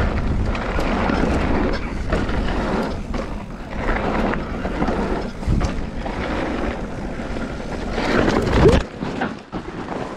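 Wind buffeting the microphone over a vehicle running on the move. Near the end the noise swells to a brief peak with a short rising pitch, then drops away.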